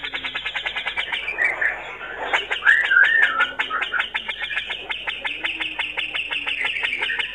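Male cucak jenggot (grey-cheeked bulbul) singing: a fast chattering string of sharp notes, about eight to ten a second, broken briefly after a second, with a short warbled phrase about three seconds in.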